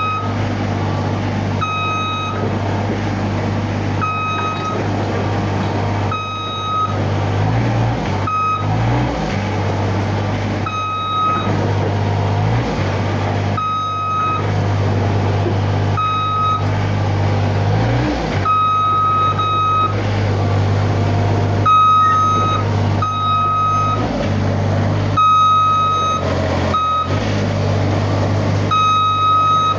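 Manitou compact track loader's diesel engine running steadily, its note rising briefly a few times, while its backup alarm beeps about once a second in runs as the machine reverses.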